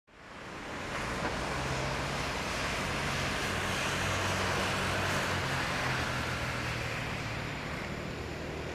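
Boeing 777-200 twin-engine jet airliner taxiing, its turbofans giving a steady whooshing hiss over a low hum. The sound fades in within the first second, swells slightly in the middle, then eases a little.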